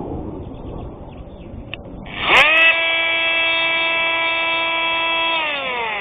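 Bosch Multitool 250 oscillating multi-tool switched on about two seconds in, quickly spinning up to a steady high-pitched whine, then switched off near the end and winding down with falling pitch. Before it starts, light handling and rustling of the sanding sheet.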